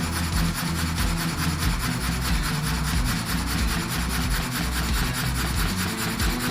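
Sawmill blade cutting steadily through a log, a continuous rasping saw noise.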